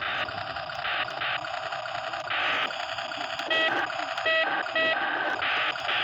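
A 1:16 RC toy truck's built-in sound module playing a tinny electronic engine sound through its small speaker, pulsing about twice a second. A few short electronic beeps join in during the second half.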